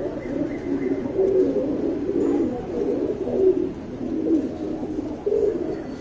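Domestic pigeons cooing steadily, several low burbling calls overlapping one another.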